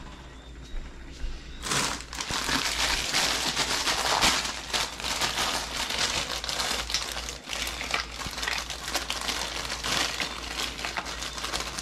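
Plastic snack packet being crinkled and crushed in the hands, a continuous dense crackling that starts about two seconds in.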